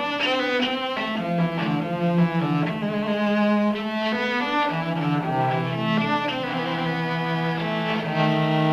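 Background instrumental music: a melody of held notes over a sustained low line, with no speech.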